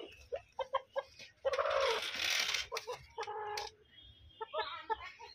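Desi rooster squawking as it is grabbed and held by hand: a loud, harsh squawk about a second and a half in, a shorter squawk right after, and more clucking toward the end.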